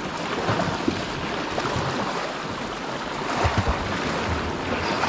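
Sea surf washing against shoreline rocks, a steady rushing with low swells, with wind buffeting the microphone.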